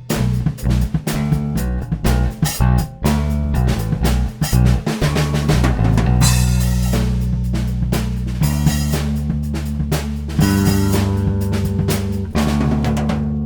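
Instrumental progressive rock with a busy drum kit (kick, snare and rimshots) over electric bass and electric guitar; the bass is a Fender Jazz Bass through a SansAmp bass preamp and the guitar runs direct through a SansAmp amp-simulator pedal. About five seconds in, the dense drumming gives way to long held bass notes and sustained chords.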